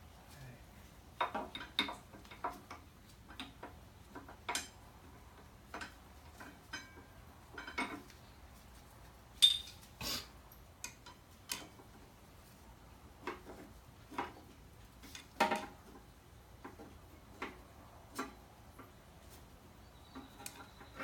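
Irregular metallic clicks, clinks and light knocks of motorcycle brake pads and caliper parts being handled and fitted, with two sharper knocks, about nine and a half and fifteen seconds in.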